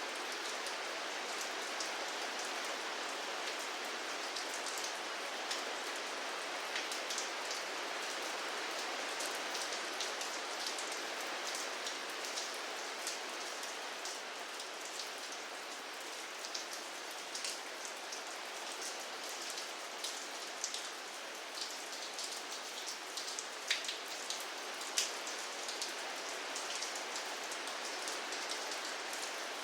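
Steady rain falling, an even hiss with many individual drops ticking on a surface, a few sharper drop hits about two thirds of the way through.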